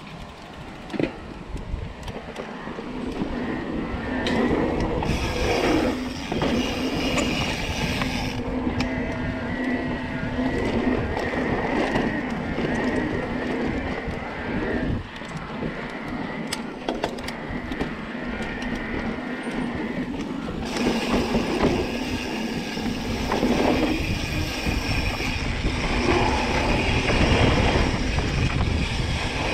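Electric mountain bike ridden along a dirt trail: wind rumble on the camera microphone, rattles and knocks from the bike over bumps, and a steady whine through much of the ride.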